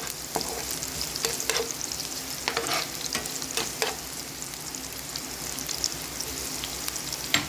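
Chopped onion, garlic and ginger sizzling as they fry in a pan, with the spoon clicking and scraping against the pan now and then as they are stirred.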